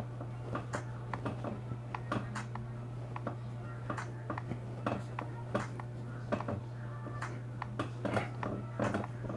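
A music track played at maximum volume through Boltune BT-BH-011 wireless headphones, picked up through the earcups by a nearby clip-on microphone: thin, sharp drum hits several times a second over a steady low hum.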